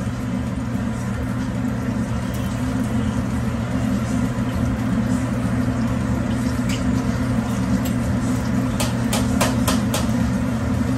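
Aloo pies deep-frying in a large pan of oil on a commercial gas range, over a steady low mechanical hum. Near the end a slotted spoon and tongs clink against the pan in a quick run of about half a dozen taps as the pies are turned.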